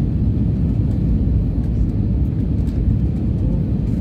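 Airbus A320neo cabin noise in flight on approach: a steady low rumble of engines and rushing air, heard from a passenger seat.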